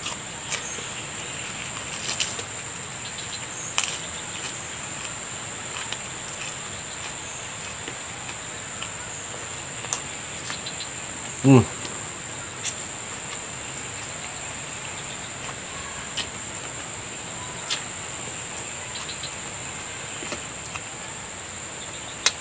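A steady high-pitched chorus of insects, with scattered soft clicks and smacks of eating with the fingers off a banana leaf, and one short low vocal sound about halfway through.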